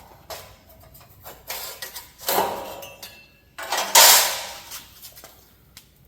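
Sheet steel scraping and clanking on the metal slats of a CNC plasma table, in a run of short scrapes; the two loudest come about two and four seconds in.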